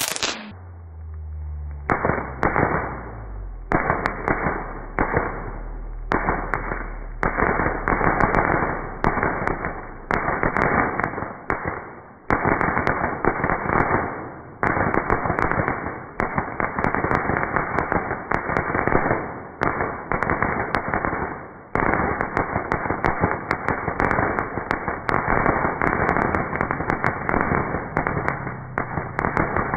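Fireworks going off: dense crackling and rapid popping in repeated bursts a second or two long with brief gaps, running almost without a break in the last third.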